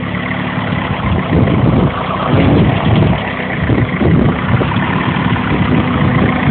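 Turbocharged Honda DOHC VTEC four-cylinder engine in an Acura Integra, running at a steady idle.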